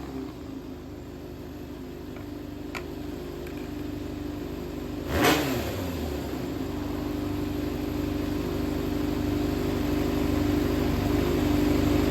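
Yamaha XJR400 inline-four engine idling steadily, with one short throttle blip about five seconds in. The seller reports it runs well, with no abnormal noise.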